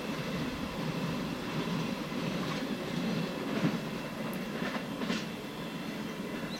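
A long freight train of empty oil tank wagons rumbles on the rails as it moves away, with a few sharp wheel clacks in the middle. The sound thins out as the train goes.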